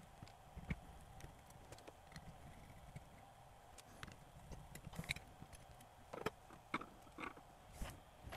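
Faint, irregular light clicks and taps of fingers and a small tool handling a cassette deck's transport mechanism while its drive belt is changed, with more of them in the second half.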